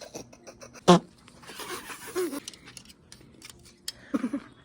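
A short, loud vocal cry with a falling pitch about a second in, with scattered small clicks and rustling throughout and faint snatches of voice.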